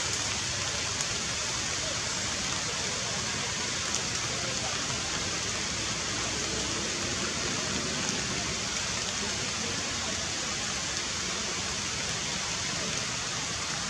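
Steady hiss of heavy rain falling on forest leaves, even and unbroken, with a few faint ticks.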